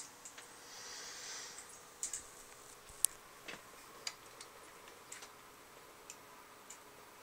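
Scattered sharp clicks and ticks over a faint steady hum, with a short hiss about a second in; the loudest click comes about three seconds in.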